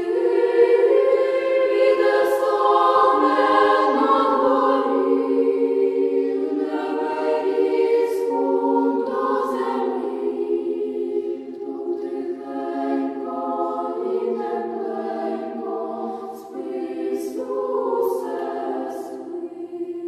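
Choir singing a slow hymn in long held notes.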